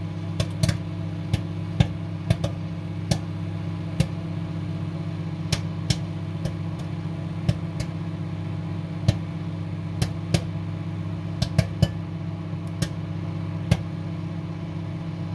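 Microwave oven running with a steady hum while popcorn kernels pop inside the bag in the late stage of popping. About twenty sharp, irregular pops come through, roughly one or two a second.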